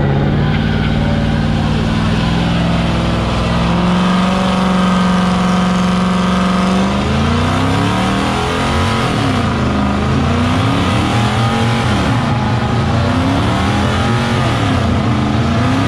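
A Chrysler 300 sedan's engine revving through a burnout with its rear tyres spinning and smoking. The revs climb over the first few seconds and are held high until about halfway, then rise and fall over and over.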